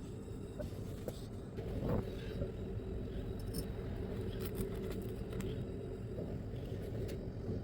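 Gas brazing torch flame burning with a steady low rushing as it heats a steel exhaust tube joint for brazing, with one brief louder swell about two seconds in.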